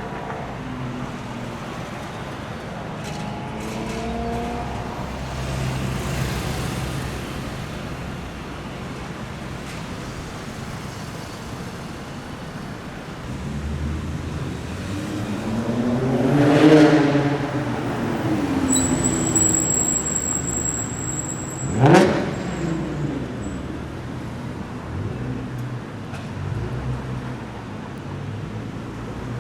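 Sports cars running in street traffic. One drives past loudly about halfway through, and an engine gives a sharp, quickly rising rev about two-thirds of the way in.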